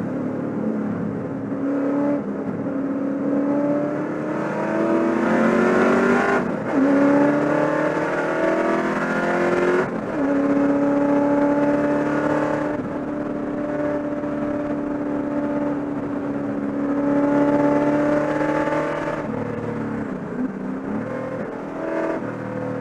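Holden Commodore V8 race car engine heard from inside the cockpit, accelerating hard through the gears. The pitch climbs and drops sharply at two upshifts, about six and a half and ten seconds in. It then holds high until it falls away a few seconds before the end, with short blips of the throttle as the car slows.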